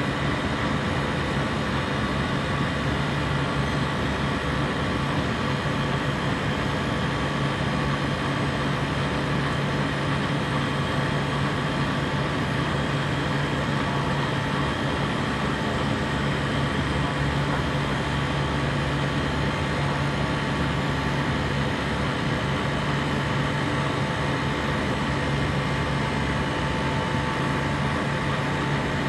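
A compressor running steadily: an even mechanical hum and hiss with a strong low drone and a few faint steady higher tones.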